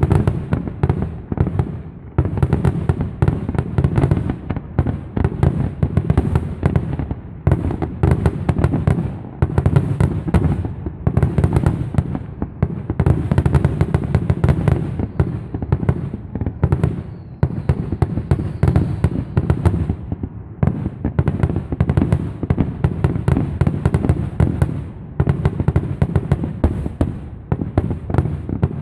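Fireworks going off in a rapid, nearly unbroken barrage: deep booms of aerial shells overlapping with crackling, several bursts a second.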